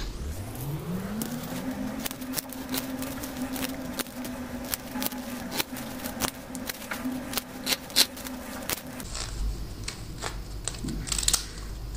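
Scissors snipping through folded A4 paper, cutting it into strips: a run of short, crisp snips. Under them a steady hum rises in pitch over the first second or two, holds, and stops about nine seconds in.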